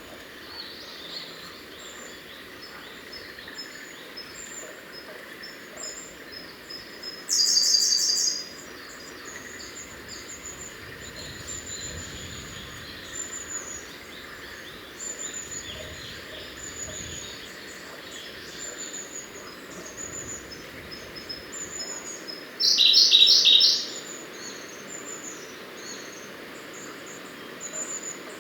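Siberian blue robin singing: two loud, rapid trilled song phrases of about a second each, roughly fifteen seconds apart, with soft high notes between them.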